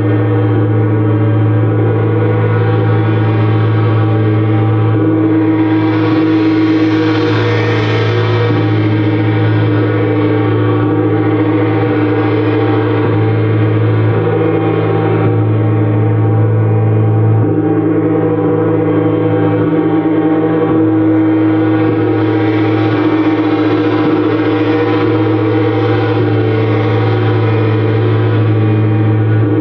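A gong sounding in a continuous wash rather than distinct strikes: a deep steady hum with many layered ringing tones, and a bright shimmer that swells up twice and fades back.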